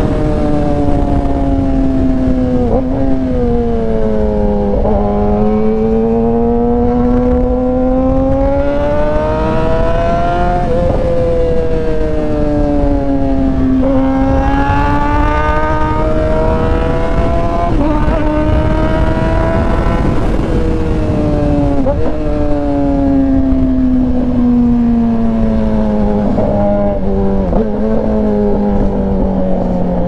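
A 2019 Yamaha R6's 599 cc inline-four engine running loud through an aftermarket Austin Racing exhaust while riding. The engine note slowly falls and rises several times as the throttle is eased and rolled on, with a few brief breaks in the note, over a steady rush of wind and road noise.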